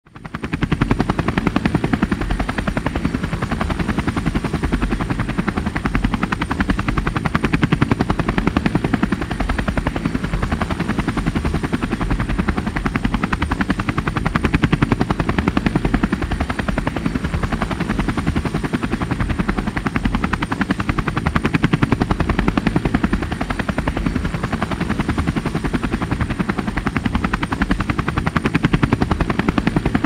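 Helicopter rotor beating steadily in a rapid, even chopping pulse, with a thin high whine held throughout. It fades in over the first second.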